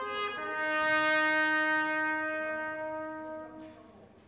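Solo trumpet music: a few short notes stepping down in pitch, then one long held note that fades out near the end.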